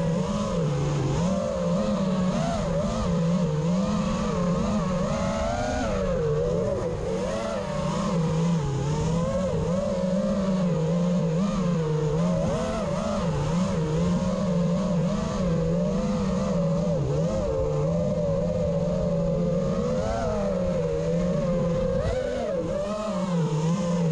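FPV quadcopter's brushless motors and propellers whining, heard from on board, the pitch rising and falling constantly with the throttle.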